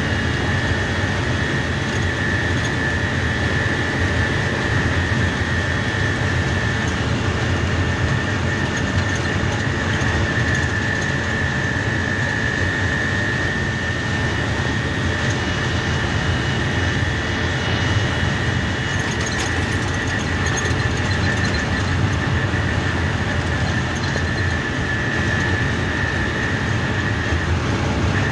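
A truck's engine and tyre noise heard from inside the cab while cruising, a steady low rumble with a constant high whine over it.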